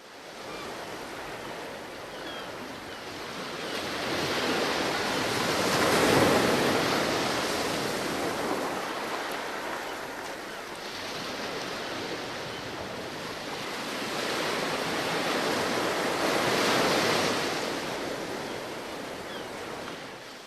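Sea waves washing onto the shore, the surf swelling and ebbing in slow surges, loudest about six seconds in and again near seventeen seconds.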